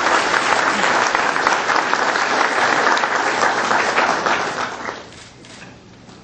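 Audience applauding, many hands clapping together, which fades out about five seconds in.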